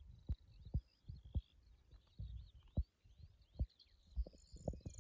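Wind buffeting the microphone in irregular low thumps and rumbles, with birds chirping and warbling faintly in the background.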